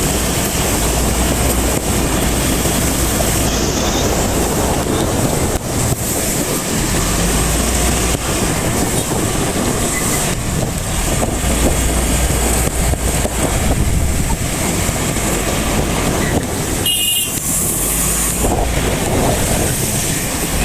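Heavy rain pouring, mixed with the noise of road traffic, with a brief vehicle horn toot about 17 seconds in.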